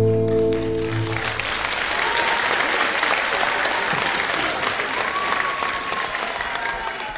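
The song's final held chord dies away about a second in, and an audience applauds steadily.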